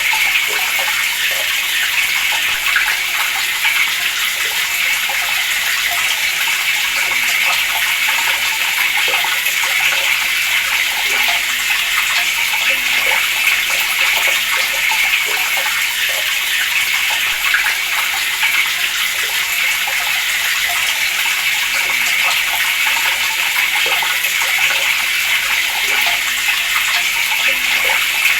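Water running steadily from an open tap and splashing, a constant rushing hiss.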